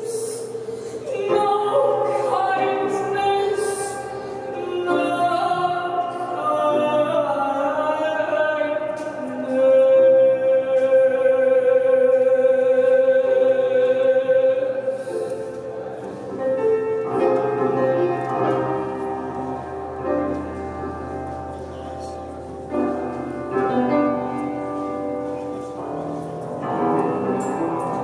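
A woman singing live in an operatic style, accompanied on piano, holding one long loud note for about five seconds near the middle.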